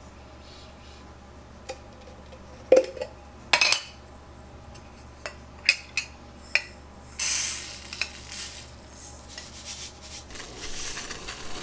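Dishes and utensils being handled in a kitchen: a series of sharp clinks and knocks as things are picked up and set down. About seven seconds in, a longer hissing, rustling noise starts.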